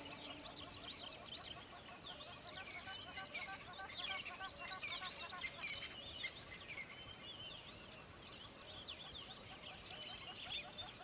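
A chorus of many small birds chirping and singing at once, faint, a dense overlapping stream of short, high chirps and quick pitch slides.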